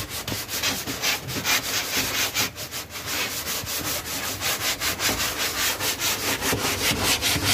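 Hand sanding with sandpaper on the epoxy-primed wooden hull of a fishing boat: quick, repeated scratchy strokes, about four or five a second, smoothing the rough primer coat.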